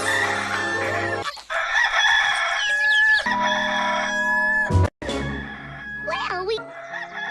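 Rooster crowing, the Hollywood Edge 'Rooster 2 Crow' stock sound effect, over background music. There is a brief gap partway through.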